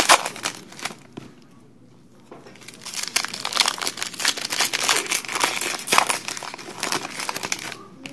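Foil wrapper of a trading-card pack crinkling and tearing as it is worked open by hand. The sound comes in two spells, a short one at the start and a longer one after a pause of a second or so.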